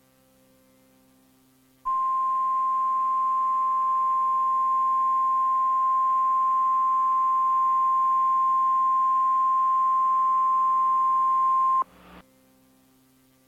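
Emergency alert attention tone: one steady high-pitched tone that starts about two seconds in, holds for about ten seconds and cuts off abruptly. A faint low hum and hiss lie underneath.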